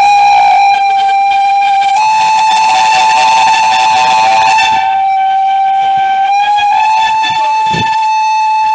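Steam locomotive whistle blowing one long continuous blast, its pitch shifting slightly a few times.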